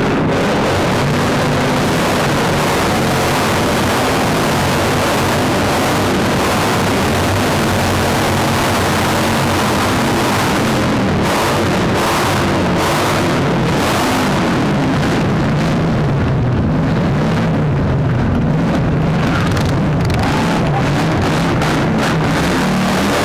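Motorcycle engines with loud pipes running and being revved in a loudest-pipes contest. The noise is dense and unbroken, loud enough to overload the recording.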